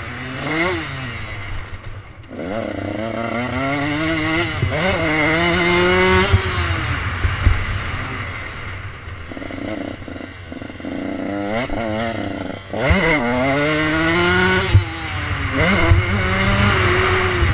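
Dirt bike engine being ridden hard, its revs climbing and dropping again and again as it accelerates along the track.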